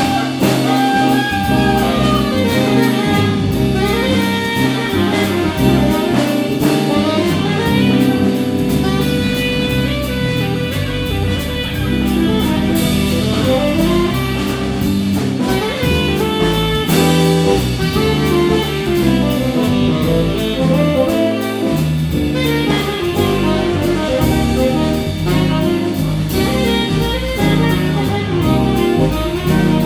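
Jazz quartet playing a waltz live: saxophone and electric guitar over a six-string electric bass and drum kit.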